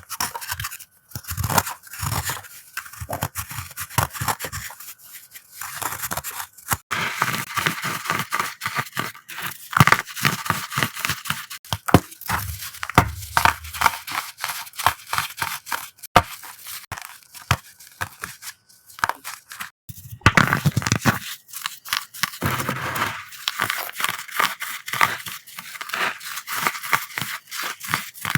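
Blocks of chalk being crushed, a dense run of crisp crackles and crunches with a few brief pauses.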